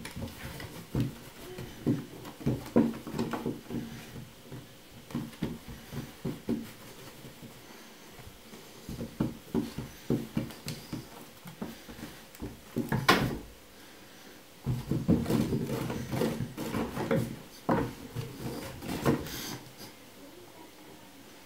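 A kitten scuffling with a hand on wooden floorboards: paws and claws scrabbling and knocking on the boards in flurries of short taps and scrapes, with one louder knock about thirteen seconds in.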